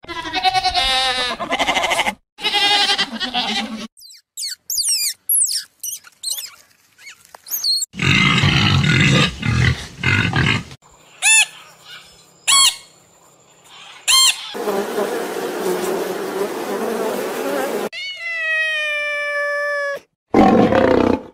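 A string of short animal calls, cut abruptly one after another: goats bleating at the start, a pig grunting in the middle, and a cat calling near the end.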